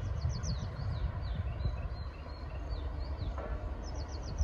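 Birds chirping in quick runs of short, high, falling notes near the start and again near the end, with single chirps between. Under them runs a steady, uneven low rumble.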